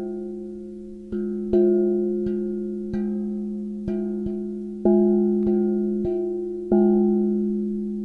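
Himalayan gong struck again and again, about ten strikes at uneven intervals. Each strike renews a low, steady ringing tone with higher overtones that fades slowly until the next. The strikes about one and a half, five and seven seconds in are the loudest.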